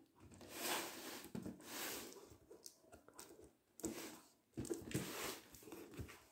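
Cardboard box being handled and turned over by hand: irregular rustling and scraping of the cardboard, with a couple of sharp knocks a little past the middle.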